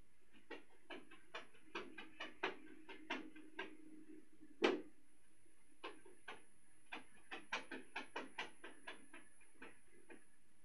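A kitten's paws tapping and clicking on a clear plastic sheet: a quick string of light taps, two or three a second, with one louder tap a little before the middle.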